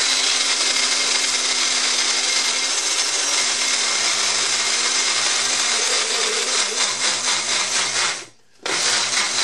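Farberware single-serve blender motor running under load, blending ice cream, peanut butter and milk into a milkshake. It runs steadily for about eight seconds, stops briefly, then is pulsed on again for a short burst near the end.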